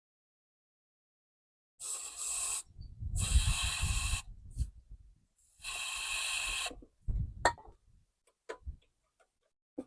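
Aerosol can of starting fluid sprayed in three short hissing bursts, priming a Briggs & Stratton lawnmower engine before a start attempt. A few light knocks and clicks follow near the end.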